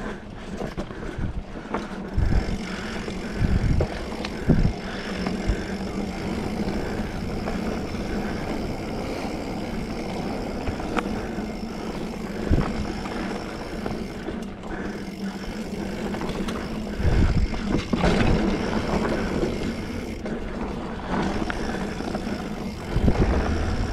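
A 2020 Specialized Fuse 27.5+ mountain bike ridden along a dirt singletrack trail: steady tyre and drivetrain rolling noise with chain rattle, broken by a few louder low thumps over bumps.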